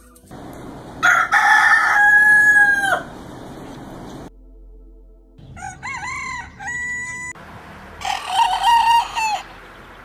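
Roosters crowing three times, each a cock-a-doodle-doo ending in a held note. The first, about a second in, is loud and the longest. A quieter one comes in the middle, and another loud one comes near the end.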